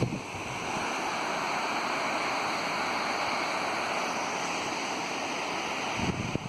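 Steady rush of water pouring down a waterfall. Wind buffets the microphone briefly at the start and again near the end.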